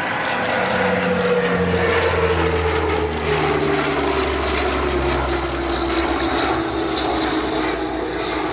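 Military transport aircraft flying past at low altitude, its engines' pitch sliding steadily down as it goes by.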